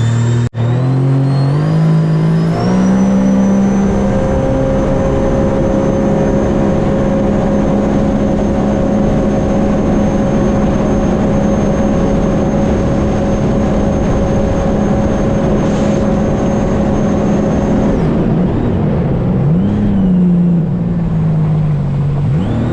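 Supercharged Rotax 1630 engine of a Stage 1 tuned 2021 Sea-Doo RXT-X jet ski revving up to wide-open throttle on a top-speed run. It holds steady at top speed for about fifteen seconds, with a high whine above the engine note and wind rushing, then backs off and settles lower near the end.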